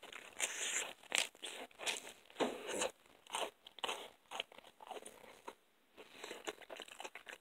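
A person chewing a bite of crisp pizza close to the microphone: a run of irregular crunches with a short pause about three-quarters through.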